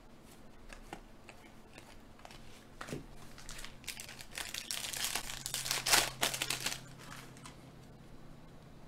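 Foil wrapper of a Panini Contenders Draft football card pack crinkling as it is handled and torn open by hand. It is loudest about six seconds in, after quieter handling of cards at the start.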